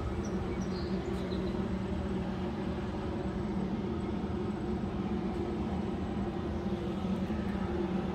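Steady low mechanical hum with a couple of held low tones, unchanging throughout.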